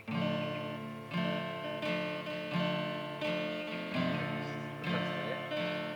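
Acoustic guitar strumming chords in a steady rhythm, a fresh chord struck about every three-quarters of a second, as the lead-in to a sung pop ballad.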